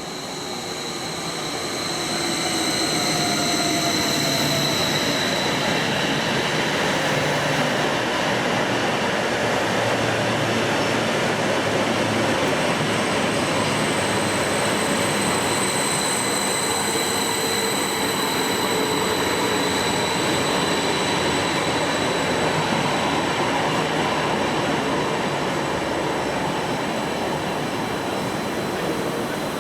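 A train running close past the platform: a loud, steady rumble of wheels on rails that builds over the first few seconds and then holds, with thin high-pitched whining tones above it, easing slightly near the end.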